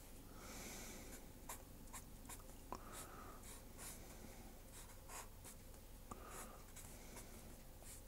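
Felt-tip fineliner pen drawing on paper: faint, quick scratching strokes, many short ones in a row, as the grass blades are sketched.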